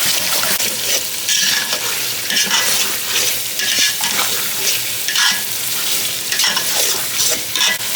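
Marinated chicken pieces and potatoes sizzling in hot oil in a pot while being stirred and turned, with scraping strokes about once a second. This is the bhuna stage, cooking the spices down with the meat.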